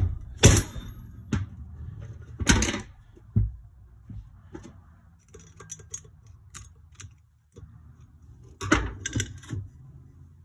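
Sharp metal knocks and clinks on a Yamaha YZ250F cylinder head: a socket set on a valve spring retainer and struck to pop the valve keepers loose. Several loud knocks come in the first few seconds, then small clicks, then two more knocks near the end.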